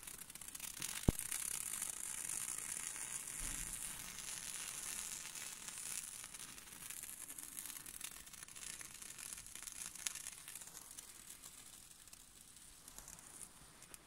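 Red glass icon lamp (lampada) flame hissing with fine crackling, fading away near the end. A single sharp click about a second in.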